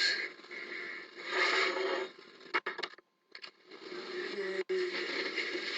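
Tinny, muffled audio playing from a device's small speaker, rising and falling, cutting out completely for a moment about three seconds in.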